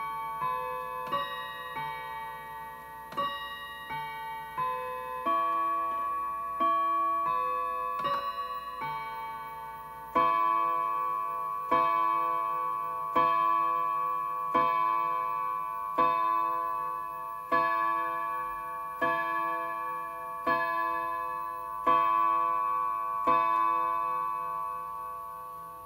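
Necor three-train mantel clock chiming the hour on its rods: a chime melody plays for about ten seconds, then ten slow, evenly spaced strikes count out ten o'clock, each ringing on and fading.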